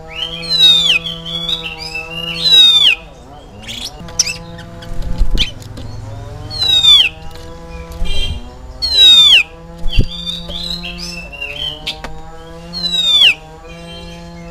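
Oriental magpie-robin (kacer) singing: five loud, clear whistles that sweep steeply downward, a couple of seconds apart, with rougher chattering notes between them. A steady low hum runs underneath.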